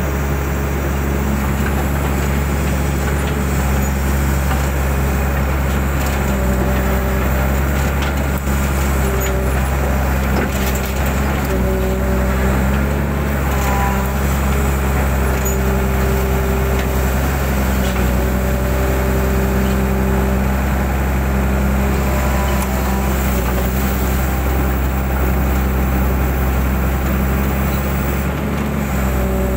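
Mitsubishi 120 hydraulic excavator's diesel engine running steadily under working load, with a higher hydraulic whine that rises and drops away again and again as the machine works.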